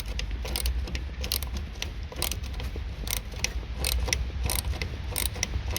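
Ratchet handle clicking in short strokes, about three clicks a second, as the T30 Torx bolts holding the headlight unit are undone, over a low steady rumble.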